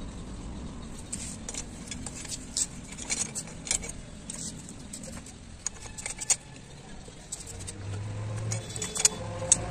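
Ribbed steel rebar clinking and scraping against the steel pipe formers and bearing roller of a homemade rebar bender as it is bent by hand, a run of irregular sharp metallic clicks. A low hum comes in over the last two seconds.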